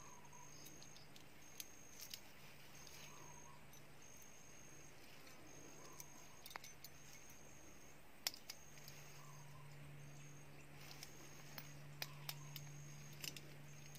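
Near silence: faint background with a short, high chirp repeating about every second, a low steady hum, and a few soft clicks.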